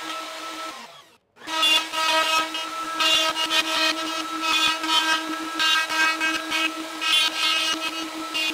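Plunge router running with a steady high whine while its bit cuts dovetails in a board, guided along a dovetail jig's finger template. The cutting noise swells and fades as the router moves from finger to finger. The sound cuts off briefly about a second in, then resumes.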